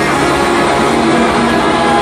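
Loud live punk rock music with electric guitar, played by a band through a festival PA and heard from within the audience.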